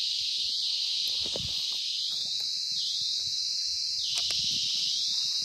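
Three high squealing whistles, each about a second long and rising in pitch at the start before holding steady, from a plastic squeeze bottle of honey mustard dressing being squeezed. A steady high insect chorus of crickets runs underneath.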